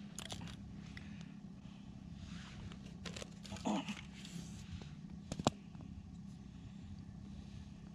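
Faint clicks, knocks and scrapes of a wooden ice-fishing tip-up being handled and lifted out of its hole in the ice, with a short low pitched sound about halfway through. A steady low hum runs underneath.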